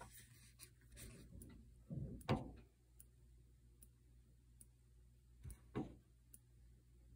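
Faint knocks and clicks over a low steady hum: a louder double knock about two seconds in, two more knocks near six seconds, and light ticks between.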